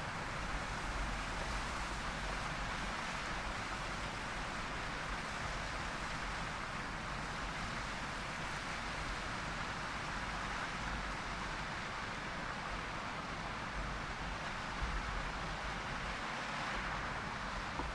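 Steady outdoor wind noise with gusts buffeting the microphone as low rumbles now and then.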